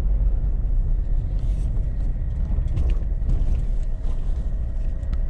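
Car cabin noise while driving slowly along a rough single-track road: a steady low rumble of engine and tyres, with a few small knocks and rattles.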